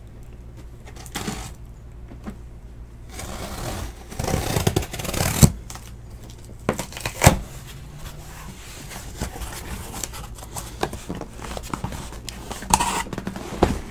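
Cardboard case box being handled on a table: scattered scrapes and knocks, with a spell of rustling and scraping about four to five seconds in, over a steady low hum.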